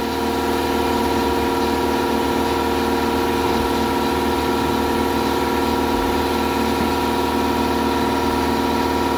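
Steady machine drone from the vapor blasting setup's small air compressor and pump running, with a hiss of water spray as the part is rinsed off inside the cabinet.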